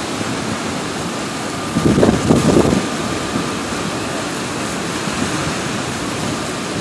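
Steady rushing of fast river rapids, with a brief louder rumble about two seconds in.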